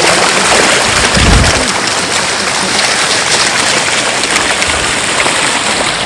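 Dense splashing of a large school of fish churning the water surface as they snatch fish food, over the steady rush of the waterfall stream. A dull low thump comes about a second in.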